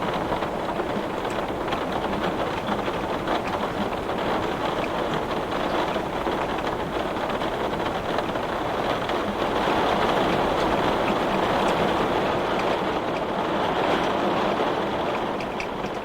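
Heavy rain hitting window glass: a dense, steady patter of drops that swells louder about two-thirds of the way through and eases slightly near the end.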